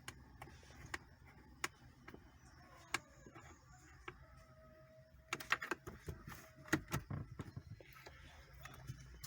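Faint scattered clicks and taps, with a brief cluster of light knocks and rattles about five to seven seconds in, typical of hands handling dashboard parts and wiring. A faint steady tone sounds for about two seconds in the middle.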